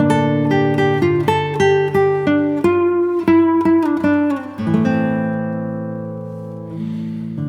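Background music: acoustic guitar picking a run of plucked notes, then letting a chord ring and fade.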